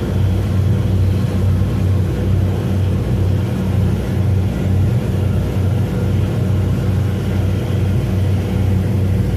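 Ferry's engines running steadily under way: a constant low hum with a wash of water and wind noise.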